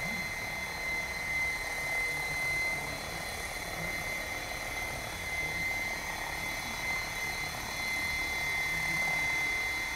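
Electric Assault 700 RC helicopter hovering at a low head speed of about 1100 RPM, with a steady rotor whir and a constant high motor whine.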